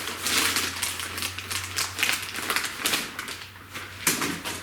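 Small metal parts and a plastic parts bag being handled: a quick run of clicks, clinks and rustling, with a louder clack about four seconds in. A faint low hum runs underneath.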